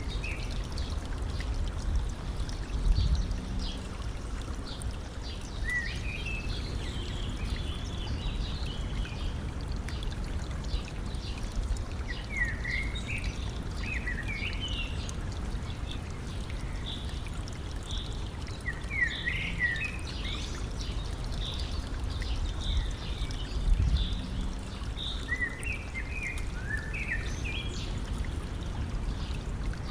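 Stream running and trickling steadily, with small songbirds chirping in short runs of quick notes several times over. Two brief low rumbles rise above the water, a few seconds in and again later.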